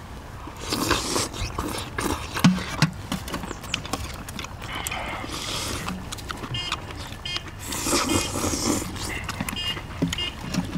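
People eating braised spicy seafood with chopsticks: loud slurps about a second in, around the middle and again near the end, with chewing and light clicks of chopsticks against bowls.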